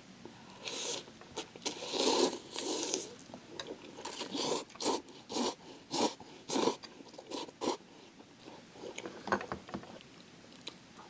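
Instant buldak ramen noodles slurped off a fork in several long sucking draws, then a run of wet chewing and mouth sounds about two a second, with a few light clicks near the end.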